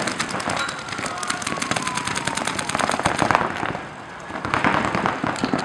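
Paintball markers firing in rapid strings of sharp pops, many shots a second, with a short lull about three and a half seconds in before the firing picks up again.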